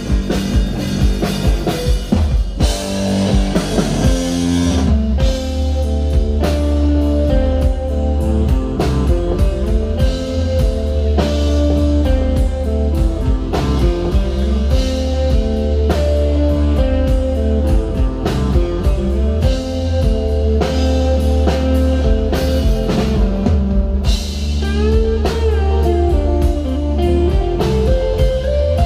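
Rock band playing slow, heavy psychedelic rock: electric guitar over a strong sustained bass line, with drum kit hits keeping the beat.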